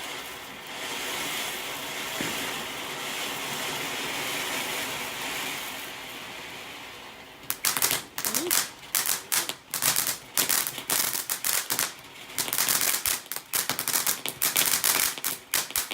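Garden firework hissing steadily, then about halfway through breaking into a long rapid run of sharp crackling bangs in quick clusters.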